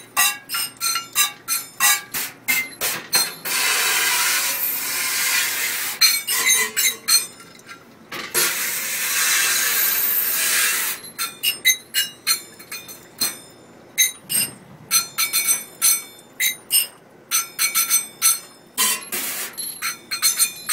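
Stainless-steel measuring cups on a ring struck against a steel sink, lids and pans in a quick rhythmic beat, with clinks and metallic ringing. Twice, for two or three seconds each, a hissing spray of water takes over.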